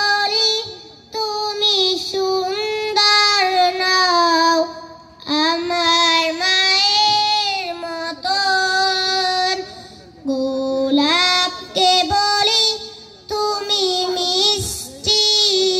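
A girl singing a Bengali Islamic gojol (devotional song) solo into a microphone, with no instruments, in sustained phrases separated by short breaks.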